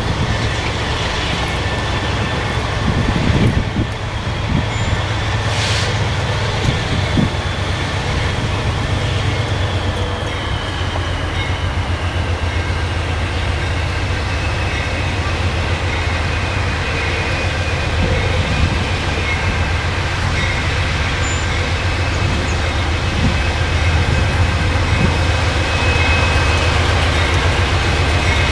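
Freight train cars rolling past on steel wheels and rails, a steady low rumble with a few knocks in the first several seconds. A thin high whine runs over it and slowly drops in pitch about ten seconds in.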